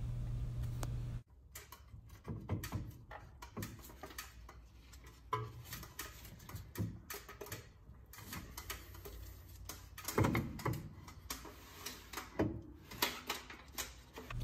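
Front brake caliper being wiggled onto a new rotor to seat it: irregular metallic clicks, knocks and light scrapes as the pads slide over the disc and the caliper settles, with a few louder knocks in the last few seconds.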